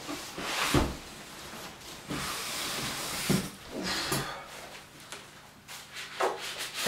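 Packaging being handled and lifted out of a cardboard box: irregular rustling and scraping with a few soft knocks, and a longer rustle in the middle.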